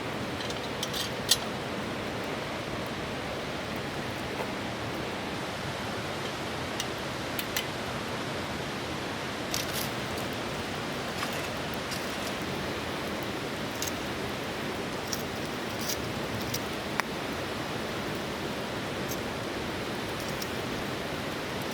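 Steady rushing of a river's flowing water, with scattered light clicks and taps on top, the sharpest about a second in.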